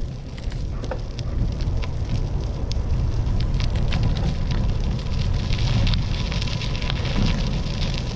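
Wind rumbling on the microphone, with irregular crackles and ticks over it.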